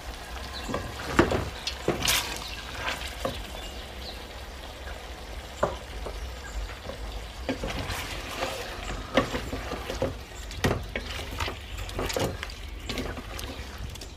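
Chicken pieces and whole spices sizzling in oil in a stainless steel pot, with a wooden spatula scraping and knocking against the pot at irregular moments as they are stirred.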